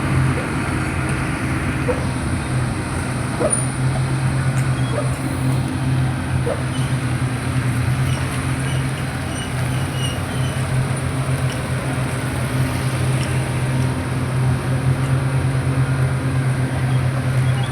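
SF 1700 road paver's diesel engine running steadily, a constant low hum, with a few faint knocks in the first seven seconds.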